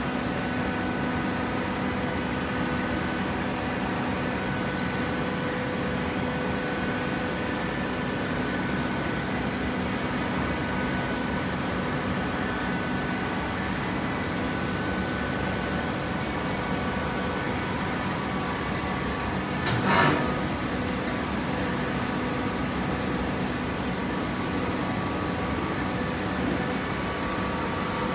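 Automatic horizontal hydraulic baler running: a steady hum from its hydraulic power unit, with a few steady tones in it. A single sharp knock stands out about two-thirds of the way through.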